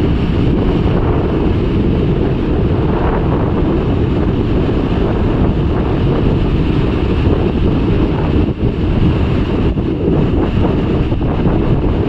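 Wind buffeting the microphone in a steady low rumble, over the continuous wash of sea surf breaking and foaming into a rocky cove.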